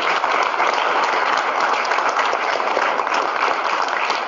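Audience applauding steadily at the end of a lecture, fading out near the end.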